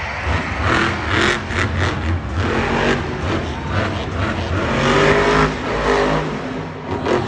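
Monster truck's supercharged V8 revving hard, its pitch rising and falling again and again as the truck drives and jumps a dirt ramp, with several sharp bangs along the way.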